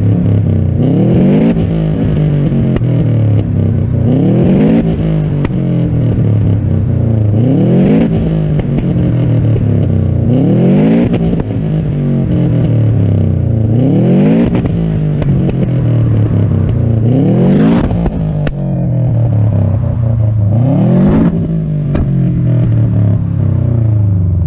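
Subaru Impreza's turbocharged flat-four boxer engine blipped up and let fall back about seven times, roughly every three seconds, with pops and bangs crackling from the exhaust as the revs drop. It runs with an uneven beat that the owner takes for a misfire from worn spark plugs.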